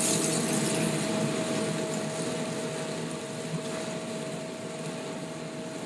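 Veal stock ladled into a hot skillet of flaming brandy and mushroom pan sauce, sizzling and hissing loudest at first and then easing off as the flames die down. A steady hum runs underneath.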